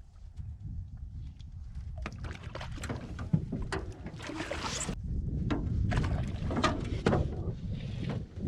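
Wind buffeting the microphone, with water lapping and sloshing against a drifting boat in a series of short splashy bursts from about two seconds in.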